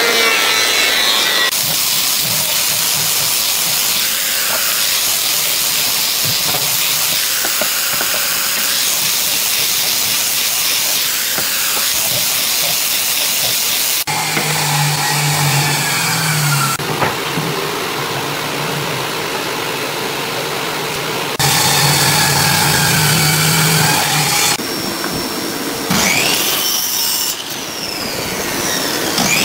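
Thickness planer running with a loud, steady hiss as a wooden board feeds through its cutter head. About halfway in this stops abruptly, and another power tool runs in stretches of a few seconds, each with a steady hum.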